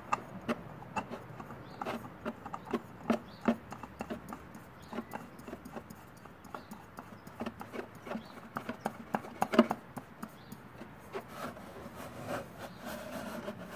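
Irregular small clicks, taps and scrapes of a new spin-on oil filter being threaded on by hand onto a motorcycle engine's filter mount, with one louder knock a little under ten seconds in.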